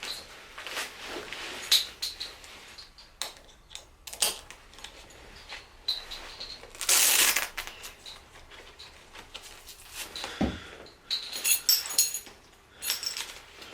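Tree-climbing saddle being put on and adjusted: straps and webbing rustling and buckles clicking, with a longer rustle about seven seconds in and a quick run of light clinks near the end.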